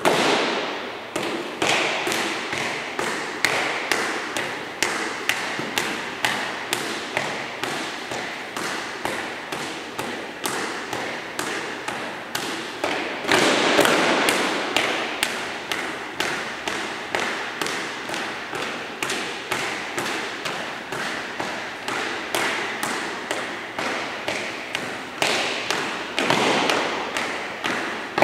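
Drill cadets marching in step in dress boots on a hard floor: sharp footfalls in unison about twice a second, ringing in a large echoing hangar. Louder, longer-echoing stamps come at the start, about halfway through and near the end.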